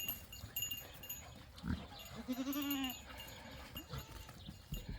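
A goat bleats once, a short call of under a second about halfway through.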